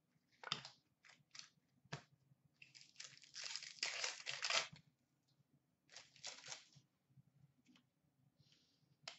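Foil wrapper of an Upper Deck hockey card pack crinkling and tearing as it is ripped open by hand. It comes in short rustles, with a longer, louder tear about three seconds in and more crinkling around six seconds.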